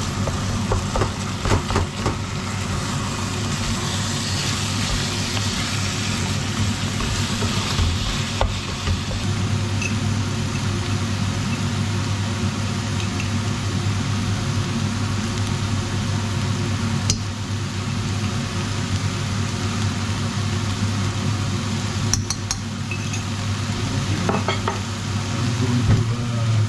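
Ground beef and bacon sizzling in a pot over medium heat, with scattered clicks of a utensil stirring against the pot. A steady low hum runs underneath.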